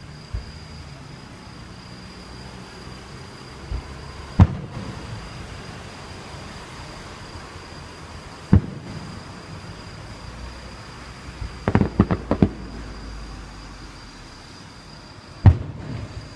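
Fireworks shells bursting: single booms a few seconds apart, and a quick run of crackling reports about twelve seconds in. A steady high insect chirring runs underneath.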